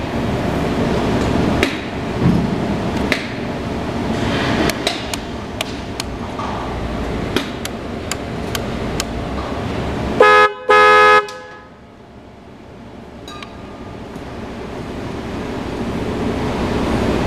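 Motorcycle horn of a BMW K1200LT sounded twice about ten seconds in, a short blast then a slightly longer one, loud and with a buzzy pitch, as a function check with the ignition on.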